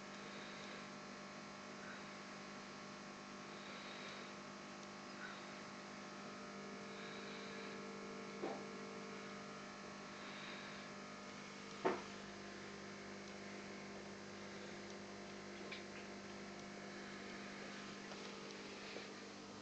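Low steady electrical hum from running aquarium equipment, with two short knocks about eight and twelve seconds in.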